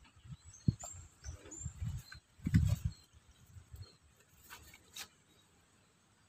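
Wind buffeting the microphone in irregular low gusts, strongest about halfway through, with a few short bird chirps above it.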